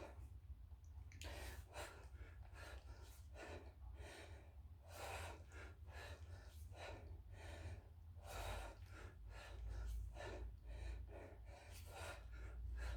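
A man breathing hard from exertion while repeatedly lifting a kettlebell: short, forceful breaths in and out in a steady rhythm, often in pairs about once a second.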